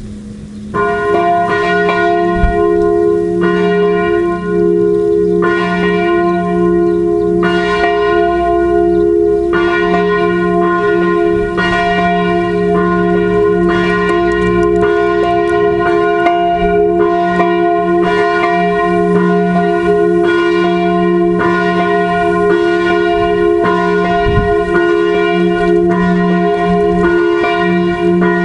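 Church bells of a five-bell peal in F3 rung 'a distesa', swung full circle. They come in loudly about a second in, with repeated strokes every one to two seconds and the tones ringing on between them.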